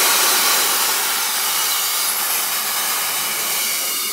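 Mammut avalanche airbag inflating: its high-pressure gas canister, charged to about 207 bar, discharging with a loud steady hiss while the bag draws in outside air as it fills. The hiss eases slightly as inflation goes on.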